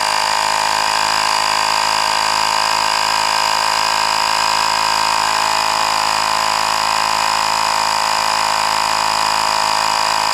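A miniature 12-volt portable air compressor runs steadily with an even high whine, pumping air into a truck tire that is below 15 psi.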